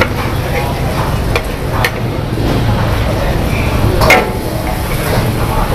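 Mee goreng noodles sizzling in a wok while a long-handled metal ladle stirs and scrapes them, over a steady low rumble. A few sharp clangs of the ladle striking the wok come through, the loudest about four seconds in.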